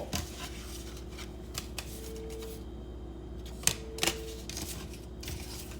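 Light clicks and taps of tarot cards being handled and searched through, with two sharper ticks near the middle, over a low steady hum.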